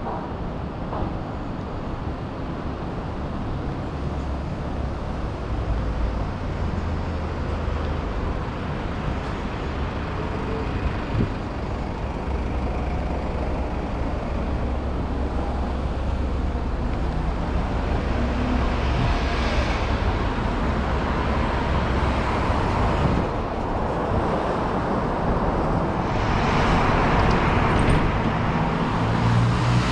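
Road traffic on a city street: cars and other motor vehicles driving past, a steady low rumble with louder passes about two-thirds of the way in and again near the end.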